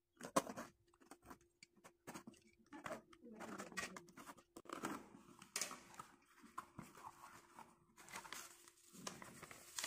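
Packing tape on a cardboard shipping box being slit with a pen and torn open, then the flaps and paper inside handled. It comes as a string of short rips, scrapes and paper crinkles.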